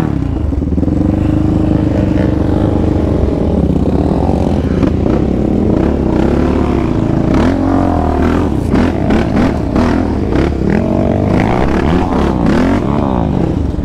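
Yamaha Raptor 700 sport quad's single-cylinder four-stroke engine running under the rider, revving up and down again and again as the throttle is worked, with occasional knocks and clatter from the machine over rough ground.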